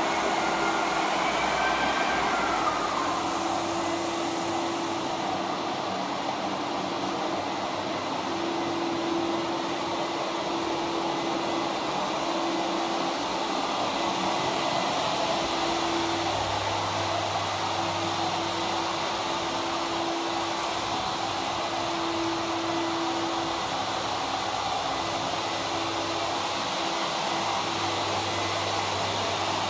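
Rotary floor sander running on a wooden floor, with its dust extractor drawing air through the hose: a steady, even machine noise with a humming tone that comes and goes.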